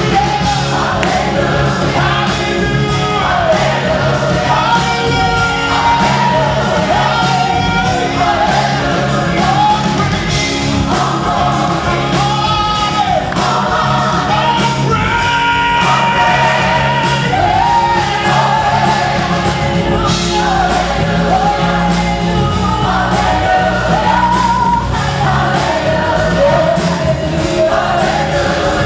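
Live gospel choir and vocal ensemble singing with a full band, lead voices over the choir and a steady drum beat underneath.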